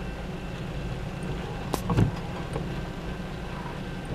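Steady low rumble of a container freight train rolling past, heard from inside a car. A single short knock with a low thud comes about two seconds in.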